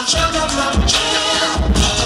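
Music with a heavy bass beat.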